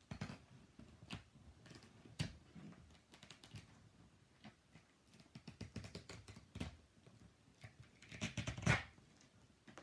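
Fingers and nails scratching and picking at the tape and plastic wrap on a cardboard parcel box, with scattered clicks, scrapes and crinkles, busiest and loudest about eight to nine seconds in.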